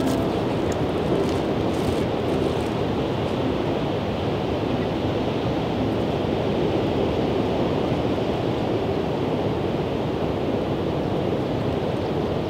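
Pacific Ocean surf breaking on a beach, a steady wash of waves.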